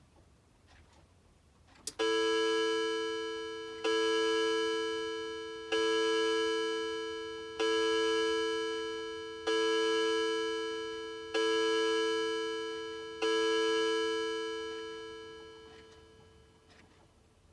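Citizen mantel clock striking the hour: seven evenly spaced strikes about two seconds apart, each a two-note ringing tone, the last left to fade away. Seven strikes count out seven o'clock.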